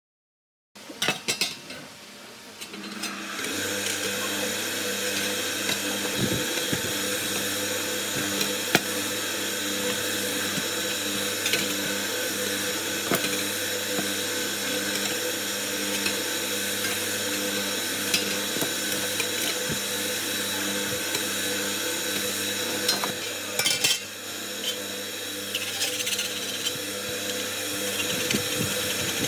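A small electric motor-driven tool running steadily, with light metallic clicks and scrapes over it. It starts about a second in after a few knocks and settles into its steady run about three seconds in.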